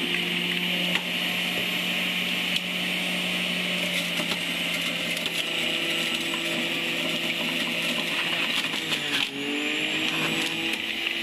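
Electric centrifugal juicer (a Selecline juice extractor) running steadily, its motor whining as it shreds carrot, beetroot and apple. The motor's pitch sags briefly about nine seconds in, then recovers.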